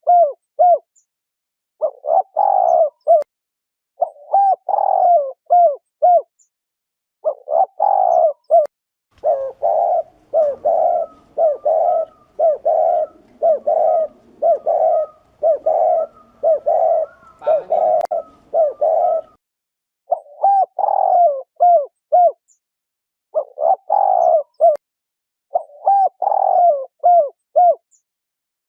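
Spotted dove cooing: the repeated 'gù' coo of a male, used to excite rival males and to lure them. Short phrases of several coo notes come about every two seconds, with a faster unbroken run of coos in the middle.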